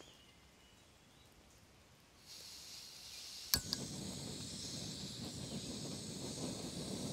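Outdoor ambience: near silence at first, then from about two seconds in a steady high hiss with faint low rustling, broken once by a single sharp click about halfway through.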